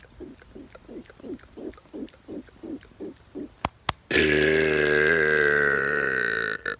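A man's long, loud, deep burp lasting about two and a half seconds, starting about four seconds in and cutting off abruptly. Before it come a run of soft, quick sounds, about four a second, and two sharp clicks.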